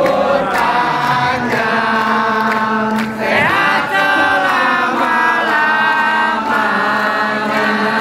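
Many voices singing together in long held notes, like a chanted song.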